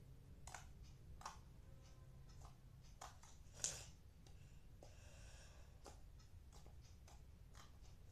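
Faint sticky clicks and small pops of slime being squeezed and stretched by hand, with one sharper pop about three and a half seconds in.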